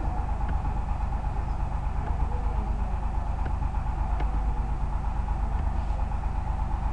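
Steady low hum and rumble, with a thin steady tone above it and a few faint computer mouse clicks.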